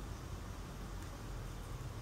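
Steady low background hum with an even hiss. No bird call or other distinct sound stands out.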